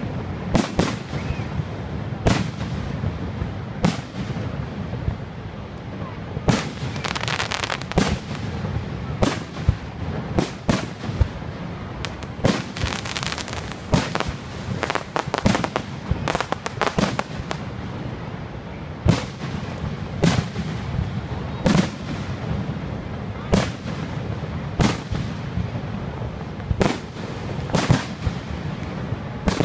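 Aerial fireworks shells bursting in an irregular series of sharp bangs, about one or two a second, with stretches of dense crackling twice. A steady low rumble runs underneath.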